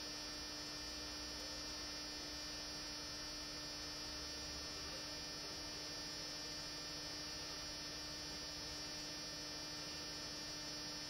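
Steady electrical hum, unchanging throughout.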